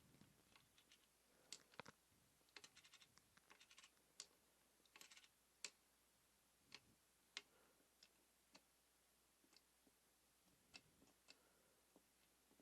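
Faint, scattered clicks and light metallic taps of small engine parts and tools being handled during reassembly of a Super Cub transmission, some coming in quick little runs.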